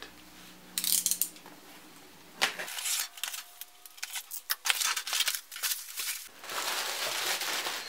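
Cardboard shipping box being opened by hand: a few sharp rips and scrapes of tape and cardboard flaps, then a steady rustling and crinkling of bubble wrap near the end.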